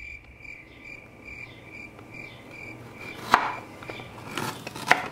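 Crickets chirping steadily, about three chirps a second, which fades out about three seconds in. Then a kitchen knife chops ginger on a plastic cutting board: three sharp strokes, the first the loudest.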